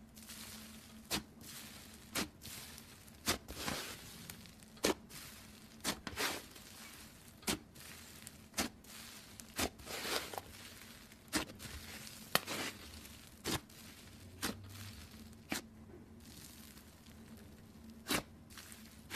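Thick bun slime being handled, giving sharp sticky pops about once a second with softer crackling and tearing sounds between them.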